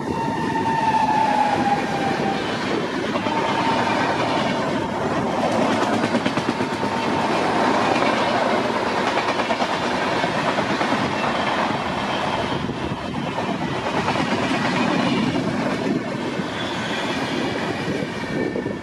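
Express passenger train hauled by a WAG 9 electric locomotive running past at speed, its coach wheels clattering continuously over the rail joints. A high whine drops in pitch over the first two seconds, then holds steady for several seconds.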